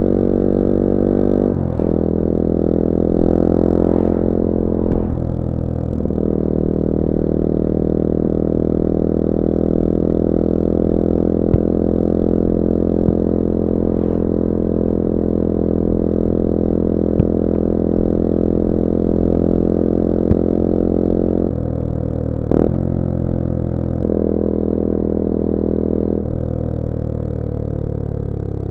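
Bullit Hero 250's CF Moto 250cc four-stroke engine running under way, with its pitch stepping at gear changes a couple of seconds in and again around six seconds. It then holds steady for a long stretch. From about 22 seconds it steps down several times and falls away as the bike slows, with a few sharp clicks scattered through.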